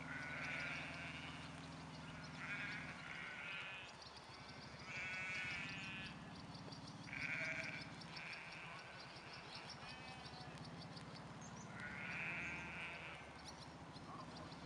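Sheep bleating again and again, with calls about a second long separated by short gaps.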